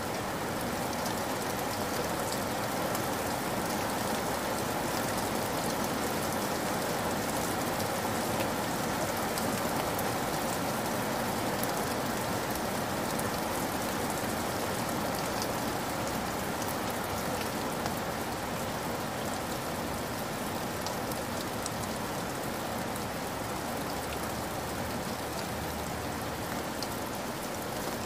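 Heavy rain pouring steadily onto a wet surface: an even, unbroken hiss of splashing with scattered sharper drop ticks.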